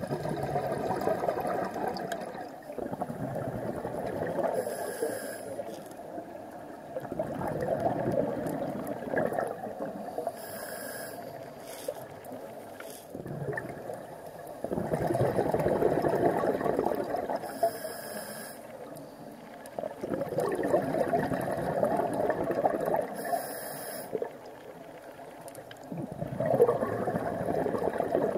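Scuba diver breathing through a regulator underwater. Exhaled bubbles burble out in bursts of two to three seconds, and a short high hiss from the regulator comes on each inhale, about every six seconds.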